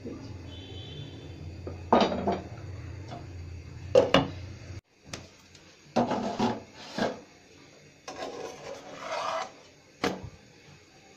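A handful of short scraping and rubbing strokes against a nonstick frying pan, a second or two apart. A low hum runs under the first few strokes and cuts off suddenly about five seconds in.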